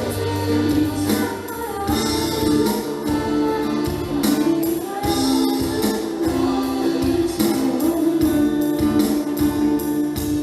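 School band playing music, with a tambourine shaking along and long held notes over a steady beat.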